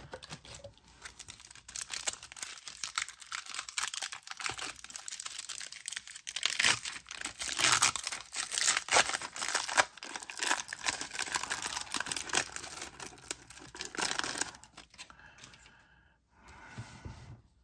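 Trading cards and their pack wrapper rustling and crinkling as they are handled on a table: a dense crackle that starts about two seconds in and stops near the end.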